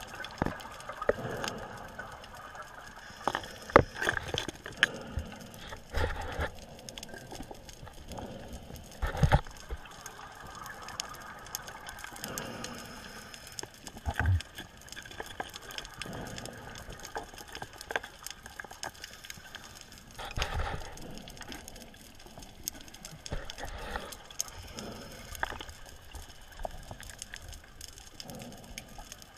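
Underwater noise picked up by a camera in its waterproof housing: a steady hiss with irregular clicks and knocks and a few short rushes of water.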